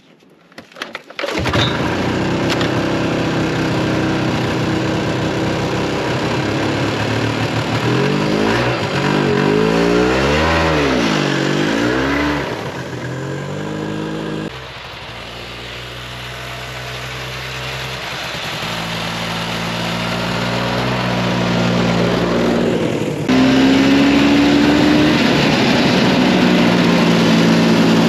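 Ski-Doo Bravo snowmobile's two-stroke engine catching about a second and a half in, then running and revving up and down a few times. Near the end it runs louder and steadier as the sled moves off.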